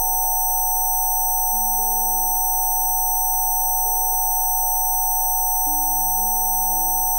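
Steady electronic sine tones of a Rife frequency session, several pure pitches held unchanging (a pair in the upper-middle range and a few very high whines), over soft ambient music of slowly shifting sustained notes. A deeper note comes in about three-quarters of the way through.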